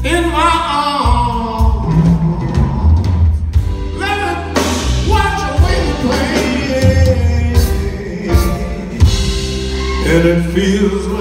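Live blues band: a man singing a slow ballad at the microphone over electric bass and drums.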